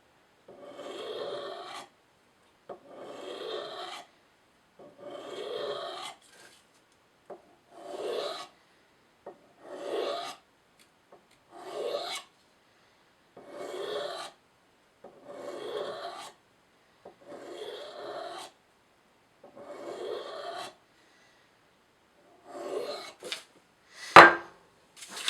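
Emerson Mini Commander's 154CM steel blade drawn across a ceramic coffee mug in slow scraping strokes, about one every two seconds, honing out rolled and damaged spots in the edge. A single sharp knock comes near the end.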